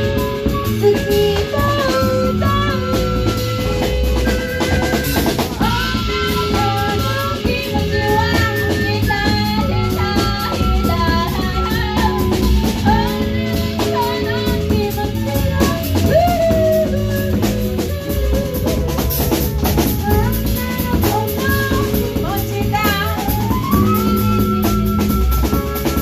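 A live band playing an improvised piece: a drum kit keeps a steady beat under held melodic notes and sliding pitched lines.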